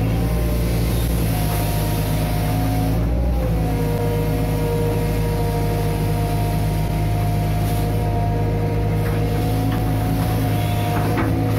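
Hitachi Zaxis 130 amphibious excavator running steadily at working revs, its engine and hydraulics making a constant hum. The note shifts briefly about three seconds in, and a few faint clicks come later.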